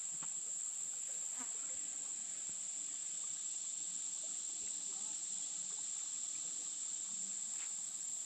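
Steady, high-pitched drone of insects calling in a summer woodland, a single thin unbroken tone with a few faint ticks beneath it.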